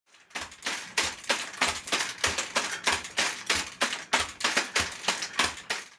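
Rubber-footed legs of a four-legged test robot dog, driven by brushless motors, stamping on a carpeted floor in a fast steady rhythm of knocks, about three a second.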